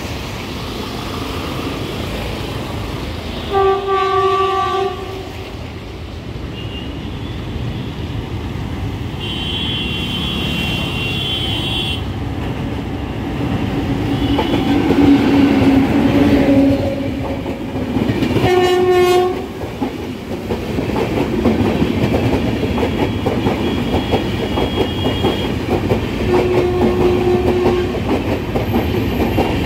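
A WAP7 electric locomotive sounds its horn twice, about 4 seconds in and again about 19 seconds in, as it approaches with the Rajdhani Express. Its coaches then pass close by, wheels clattering over the rail joints, with other horn tones and road traffic mixed in.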